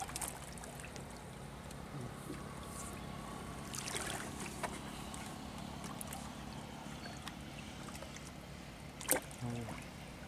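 A wet cast net being hauled out of the water over the side of a wooden boat: faint splashing and trickling, with a sharp knock near the end.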